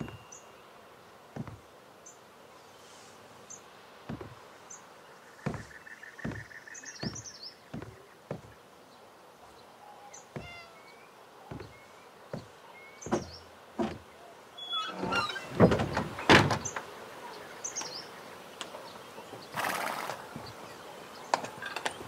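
Wooden lattice door being handled and opened: scattered soft wooden knocks and steps, then the loudest clatter of knocks about three-quarters of the way in and a brief rush of sound a few seconds later. Birds chirp faintly throughout.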